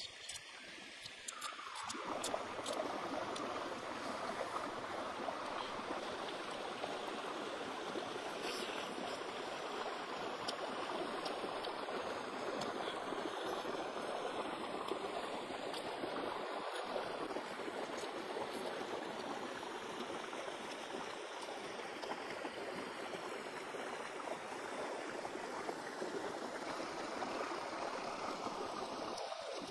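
Shallow rocky stream flowing: a steady rush of running water that comes up about two seconds in.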